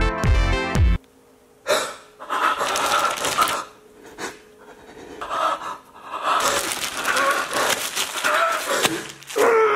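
Electronic music cuts off about a second in, followed by a person's loud, uneven panting and gasping in bursts with short pauses.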